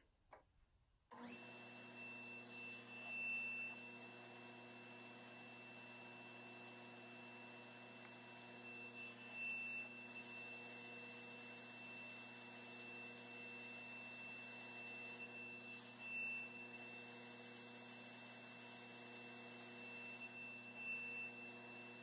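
Table saw running steadily: a motor hum with a high blade whine, swelling slightly a few times as the sled is pushed through repeated nibbling passes to clear the waste from a rabbet.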